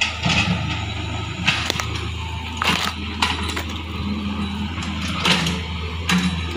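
Hitachi mini excavator's diesel engine running steadily as it loads oil palm fruit bunches into a dump truck, with irregular sharp knocks and clatter over the hum.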